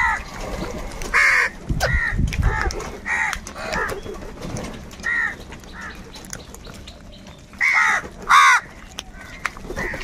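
A flock of house crows cawing: separate harsh caws from several birds every second or so, with the two loudest caws about eight seconds in.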